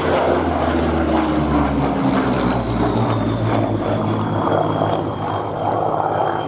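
Rolls-Royce Merlin V12 piston engine of a Second World War fighter flying past. Its drone drops in pitch over the first few seconds as the aircraft goes by, then holds steady.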